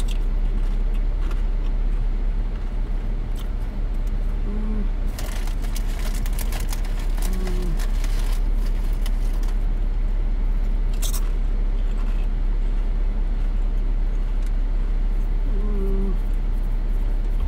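Potato chips crunched in the mouth now and then, with a few crackles of the chip bag, over the steady low rumble of a car idling.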